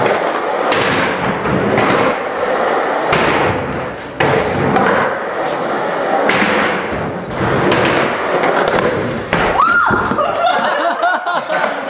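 Skateboard wheels rolling over a concrete floor and ramp, with several hard thuds of the board hitting down. A voice calls out near the end.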